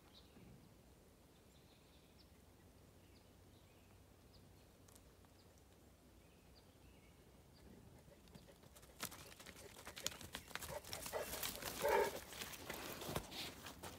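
Quiet outdoor air with a few faint high ticks. From about nine seconds in come steady footsteps crunching and rustling through dry leaves and twigs, loudest around twelve seconds, where a brief vocal sound rises over them.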